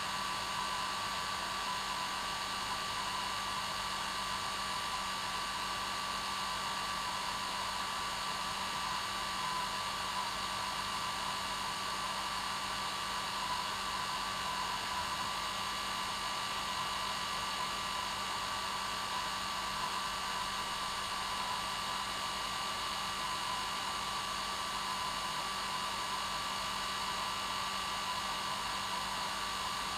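Hair dryer running steadily: an unchanging rush of blown air with a low hum and a higher steady whine from the motor and fan.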